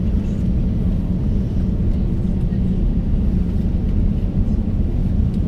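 Steady low rumble inside the cabin of an Airbus A350-900 taxiing, its Rolls-Royce Trent XWB engines running at low taxi power.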